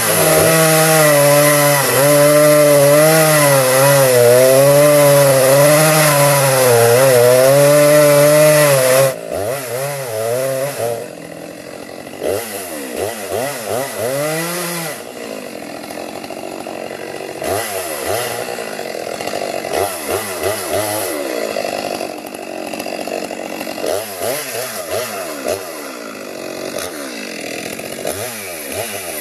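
Chainsaw cutting at full throttle for about nine seconds, its pitch wavering under load. It then drops back and is revved up and down in short bursts.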